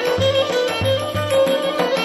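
Background Turkish folk music: a steady davul-style drum beat, about three strokes a second, under a held reedy melody of the zurna kind.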